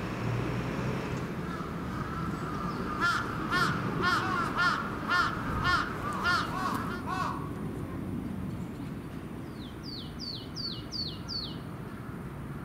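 A crow cawing in a quick run of about ten caws, roughly two a second. A couple of seconds later, five high, quick down-slurred notes from a small bird.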